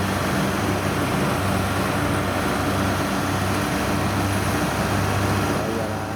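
Kubota rice combine harvester's diesel engine running steadily, a constant low hum.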